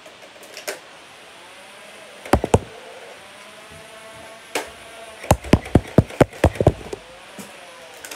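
Nerf N-Strike Modulus Regulator motorised flywheel blaster firing foam darts: a quick group of three shots, a single shot, then a rapid string of about eight shots at roughly six a second. A whirring tone rises and falls under the shots as the flywheels spin.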